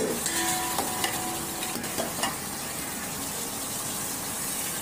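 Mutton pieces sizzling in a red chilli and curd gravy in a metal pot, stirred with a metal ladle that scrapes and knocks against the pot several times in the first couple of seconds.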